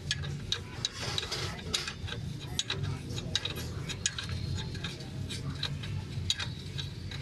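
Ratchet socket wrench ticking and clinking in short irregular clicks, a few a second, as it turns the bolt on top of a truck's front kingpin, over a steady low hum.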